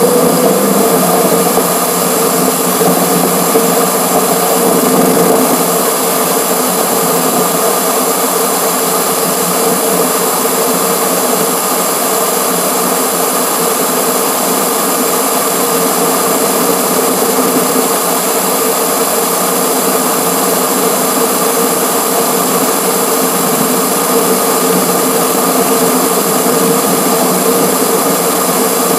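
Steady wind and road noise with a constant whine from a grille-mounted camera on a moving car, the recording sped up six times.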